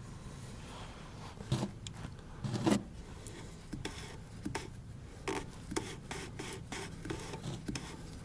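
Graphite grease being worked by hand into a car's front shock absorber bump stop and its cup: short, irregular scrapes and rubs, with a few louder knocks about one and a half and two and a half seconds in.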